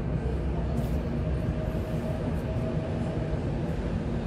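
Electric commuter train approaching a station platform: a steady low rumble with a faint steady whine over it.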